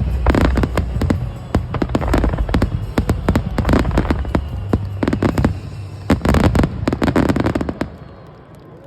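Aerial fireworks bursting in rapid succession: many sharp crackling pops and bangs over a low rumble. They die away shortly before the end.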